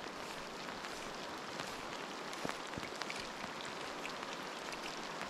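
Steady rain falling on a stream's surface, with many small separate drop ticks scattered through it.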